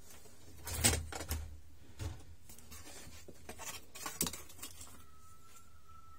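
Knocks, clicks and rustles of a satellite receiver's circuit board being handled and set down in its case. The loudest knock is about a second in, with a cluster of lighter clicks a little past halfway, and a faint thin steady tone comes in near the end.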